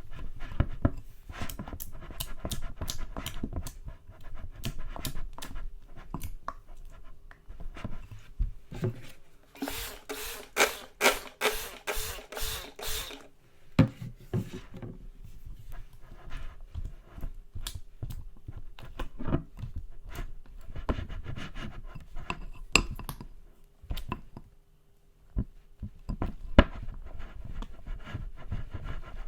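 Glue slime being squished and stretched by hand: a run of sticky pops and clicks, with a denser, louder stretch of crackling pops about ten to thirteen seconds in.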